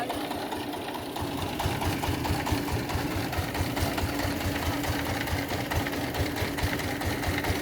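A small engine running, with a rapid, even chugging that comes up about a second and a half in over a steady hum.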